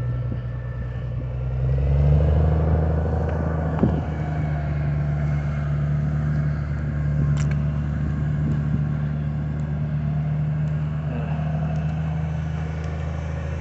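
Engine running steadily, picking up revs about two seconds in and holding the higher speed.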